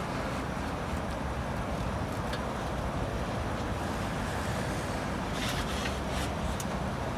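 Audi RS6's twin-turbo V8 running at a steady low idle as the car creeps down a car transporter's steel ramp, with a few light clicks late on.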